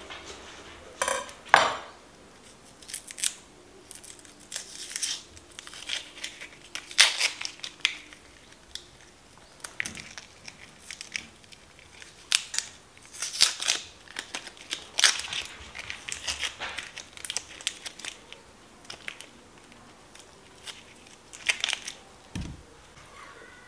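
Food preparation sounds: irregular crinkling and crunching in short spells with brief gaps, and one dull knock near the end.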